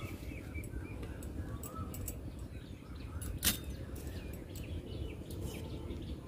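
Sharp snaps of drumstick pods being cut on a boti blade: a few crisp clicks, the loudest about three and a half seconds in. Birds chirp faintly in the background.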